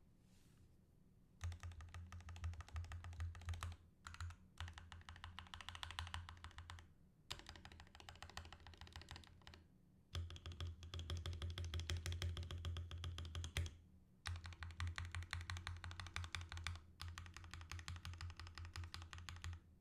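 Royal Kludge RK61 60% mechanical keyboard in stock form, with factory switches and keycaps, being typed on in quick runs of keystrokes broken by short pauses.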